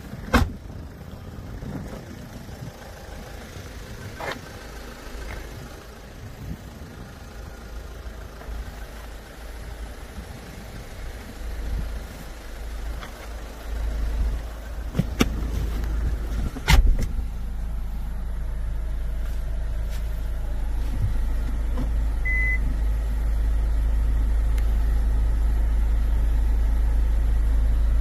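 Sharp clicks, then a car door shutting with a loud thump about 17 seconds in. After it comes a steady low rumble heard from inside the cabin of the Hyundai Tucson ix.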